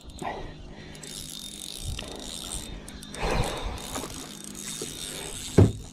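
Okuma Helios SX spinning reel being wound in on a hooked bream, with a splash from the fish at the surface a little past three seconds and a short thump near the end.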